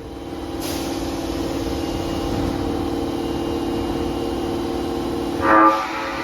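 Osaka Metro Tanimachi Line subway train coming into the underground station, giving a steady hum with a held pitch. About five and a half seconds in there is a short, louder blast with several tones, likely a toot of its horn.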